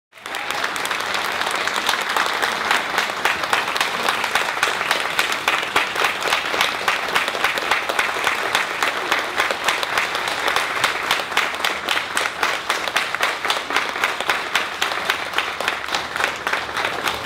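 Audience applauding: many hands clapping steadily without a break.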